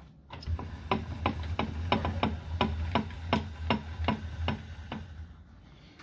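Lathe saddle (carriage) being traversed along the bed, with a run of sharp clicks about three times a second over a low hum. The clicks fade near the end.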